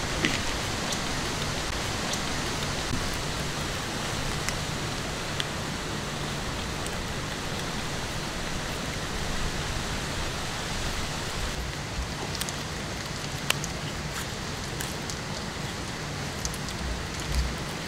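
Steady outdoor background hiss with a few faint, scattered clicks.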